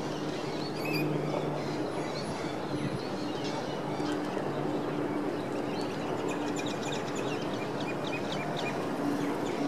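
City riverside ambience: a steady hum of traffic, with a small bird twittering in quick high chirps, a few about a second in and a rapid run from about six to nine seconds in.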